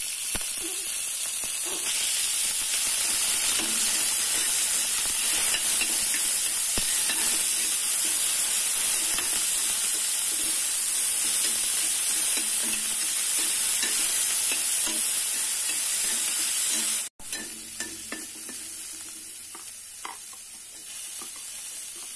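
Thin slices of beef sizzling loudly as they fry in a hot pan, with a spatula scraping and tapping against the pan as they are stirred. About seventeen seconds in the sound cuts out for an instant, then the sizzle carries on quieter, with scattered ticks.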